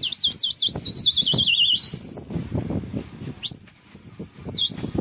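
Two loud high whistles: the first warbles quickly up and down, about six wobbles a second, while sliding slowly lower for about two seconds; after a short pause a second, steady note is held for about a second, swooping up at its start and dipping as it ends.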